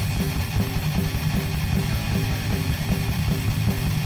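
Rock music with electric guitar over a steady drum beat.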